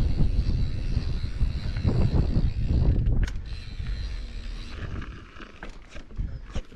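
Mountain bike ride: wind rumbling on the microphone over tyre and trail noise, easing off sharply about three seconds in to quieter rolling noise with a few scattered clicks.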